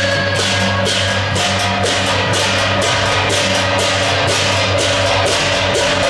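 Temple procession percussion band: large hand cymbals clash in a steady beat, about three to four strokes a second, over a ringing gong and drum.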